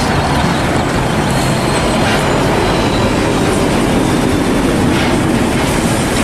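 Hino tractor unit hauling a container semi-trailer driving past on the road: a steady rumble of engine and tyres.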